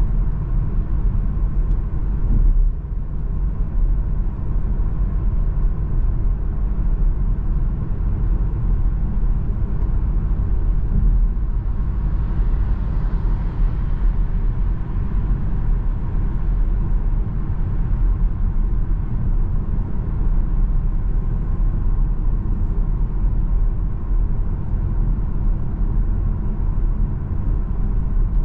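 Steady low rumble of road and engine noise inside a moving Seat Arona with the 1.5 TSI four-cylinder petrol engine, at an even pace. A brief swell of hiss comes about halfway through.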